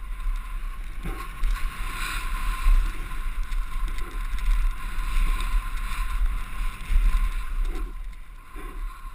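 Wind buffeting a helmet camera's microphone over the rolling and rattling of a mountain bike's tyres on a bumpy dirt trail during a fast descent. There are louder jolts about two and a half seconds in and again near seven seconds.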